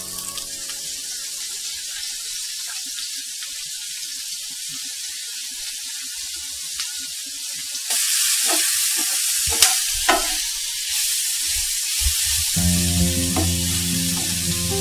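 Chopped onions sizzling in hot mustard oil in a nonstick frying pan, louder from about eight seconds in, with a few knocks and scrapes of the spatula against the pan as they are stirred.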